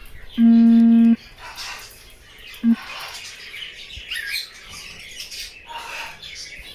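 Many small cage birds chirping and twittering together. A loud, steady, low buzzing tone sounds for under a second just after the start, then once more briefly.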